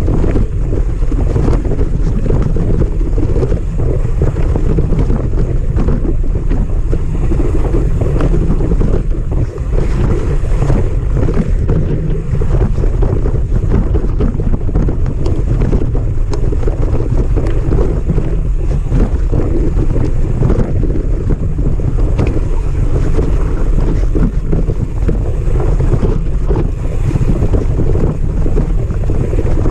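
Steady, loud wind rumble on a bike-mounted action camera's microphone as a mountain bike descends a rough forest trail, with frequent short knocks and rattles as the bike goes over roots and rocks.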